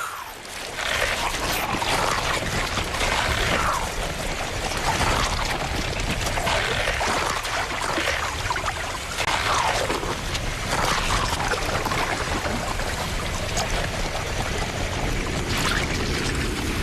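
Moving water pouring and splashing: a steady rush with repeated swishing surges every second or two.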